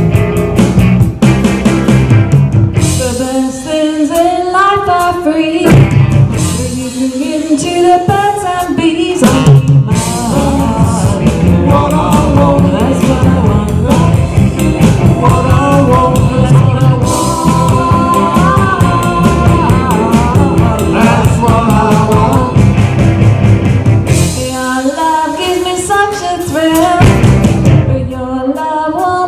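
A live rock band playing a song with a lead singer: loud, with steady band backing throughout and the vocal line coming in and out.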